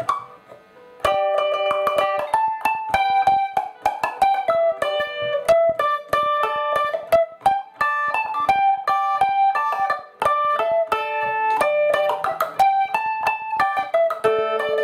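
Eastwood Mandocaster, a 12-string electric mandolin, picked note by note in a melody, beginning about a second in after a brief pause.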